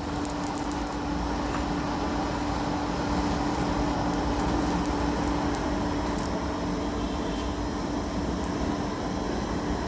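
Electric blower running with a steady hum, forcing air into a charcoal forge fire that rushes with a few sharp crackles. The hum cuts off near the end.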